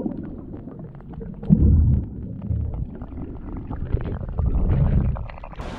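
Muffled underwater sound heard through an action camera's waterproof housing: low rumbling of moving water that swells about one and a half seconds in and again about four and a half seconds in, with a steady scatter of faint crackling clicks.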